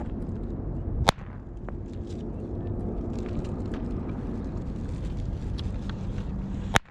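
Two sharp firecracker bangs, one about a second in and one near the end, over steady wind rumble on the microphone.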